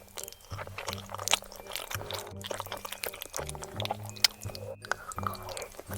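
Background music with a repeating low bass line, over close-miked eating sounds: many sharp clicks and wet, liquid noises.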